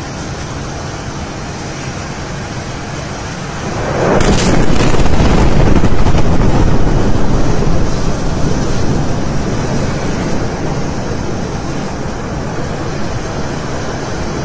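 Chemical plant explosion: a sudden blast about four seconds in, over a steady background noise. It grows into a loud, long rumble that peaks over the next few seconds and slowly dies away.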